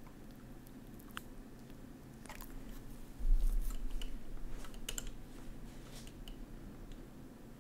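Typing on a computer keyboard: scattered key clicks, with a low thud about three seconds in, over a steady low hum.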